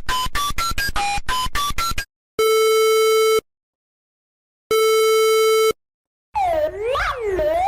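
Emergency alert alarm tones: a fast run of short electronic beeps jumping in pitch, then two steady buzzing tones of about a second each with a pause between, then a siren sweeping up and down in pitch starting about six seconds in.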